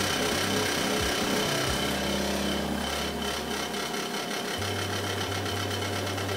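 Home cotton candy machine running: its small electric motor spins the heated sugar head with a steady hum, and the low hum changes twice.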